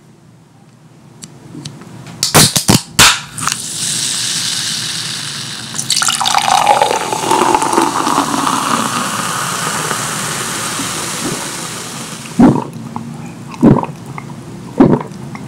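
Liquid pouring and splashing, with a falling tone through it, preceded by a few sharp clicks and followed by three separate knocks near the end.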